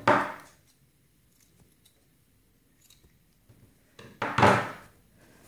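Two brief rustles of shirt fabric being handled and turned over, one at the start and one about four seconds in, each fading within half a second.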